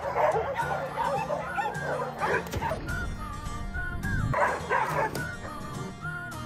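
A pack of dogs barking and yipping excitedly in two bursts, over background music with held notes.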